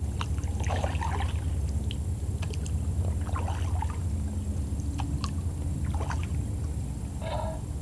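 Fiberglass canoe being paddled through calm water: soft paddle strokes, drips and light knocks over a steady low rumble, with a few short higher-pitched calls, one just after seven seconds.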